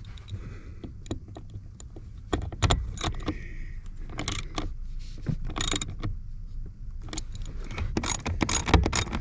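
Hand tools and metal parts clinking and rattling in irregular clusters of sharp clicks while the new blower motor assembly is fitted back into place under a 2005 Toyota Tacoma's dashboard.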